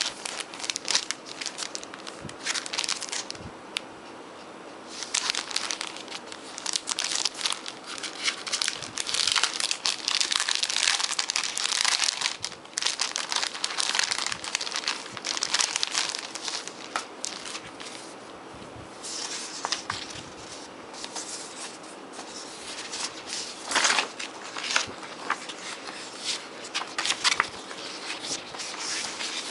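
Clear plastic document bag crinkling as it is handled, in irregular bursts with short quieter gaps, mixed with paper leaflets rustling.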